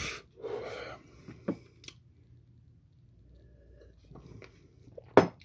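Small mouth sounds: a breath out, a few soft lip clicks, then a sip from a glass about four seconds in and a single sharp knock near the end.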